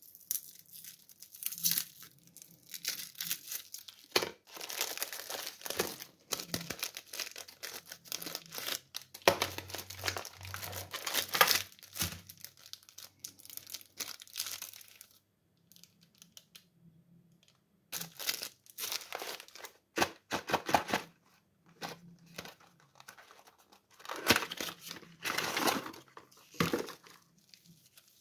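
Plastic candy wrappers crinkling and tearing as a lollipop wrapper is pulled open and a cellophane bag of lollipops is handled. The crackling comes in irregular bursts with a couple of pauses of a few seconds.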